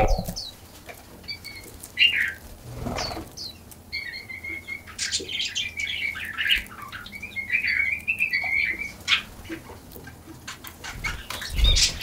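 Small songbirds chirping and twittering in quick runs of notes, with a wing flutter about three seconds in and another near the end as birds fly in and out.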